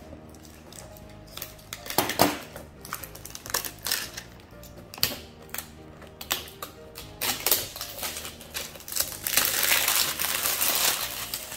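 Clear plastic wrap crackling and tearing as it is slit and peeled off a cardboard figure box, with sharp clicks and taps now and then. The crinkling is loudest and most continuous over the last couple of seconds. Soft background music plays throughout.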